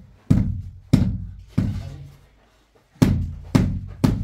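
Heavy thuds of stone floor slabs being struck to bed them into fresh mortar. There are six blows roughly half a second apart, with a pause of about a second and a half after the third.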